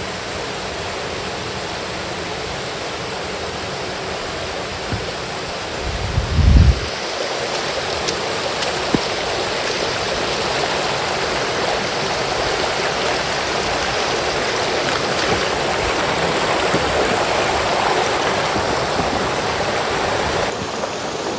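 Steady rushing water, like a stream or small falls, with one low thump about six seconds in; after it the rush is slightly louder.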